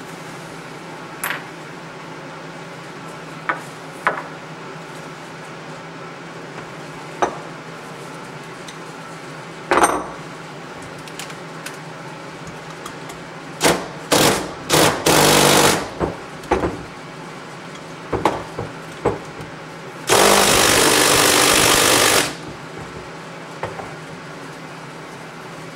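Scattered clicks and knocks of metal tools and parts on a workbench, then a cordless impact driver working a bolt on a motorcycle fork tube: several short bursts on the trigger, and about two seconds later one steady burst of about two seconds.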